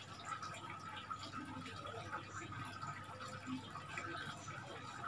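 Faint scattered small ticks and light handling noises from fingers working a SIM card and phone, over a steady low background hum and hiss.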